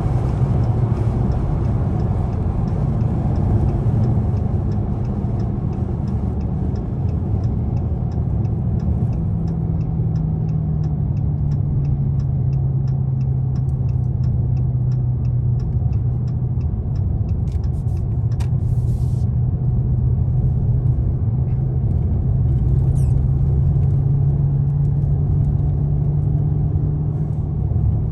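Dodge Hellcat Redeye's supercharged 6.2-litre V8 cruising on the road: a steady low engine drone with road rumble. A light regular ticking runs through the middle stretch.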